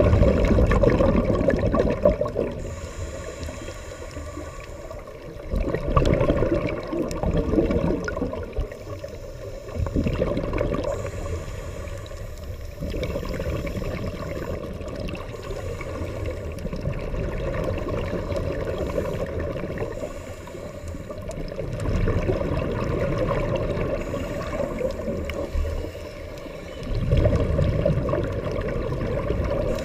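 Muffled underwater rushing of a scuba diver's exhaled regulator bubbles, swelling in surges every five seconds or so with each breath out.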